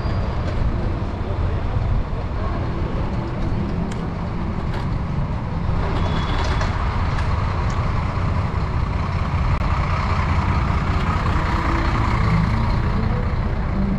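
Engine of a double-decker tour bus running at a stop, its sound building in the second half as the bike draws up alongside, over a steady low rumble.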